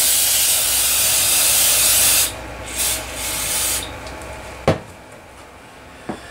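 Aerosol carburetor cleaner spraying, rinsing carbon off a piston: one long hiss of about two seconds, then two short bursts. Two light knocks follow near the end.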